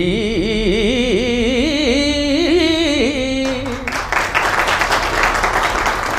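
A man's voice singing the closing phrase of a Telugu padyam, drawn out in a wavering, ornamented melisma that ends about three and a half seconds in; then an audience applauding.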